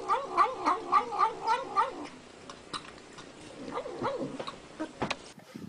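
Cat mumbling rapid, rhythmic "nom nom nom" cries as it eats, about four a second, stopping about two seconds in. Fainter wavering mumbles follow near the end, then a couple of sharp clicks.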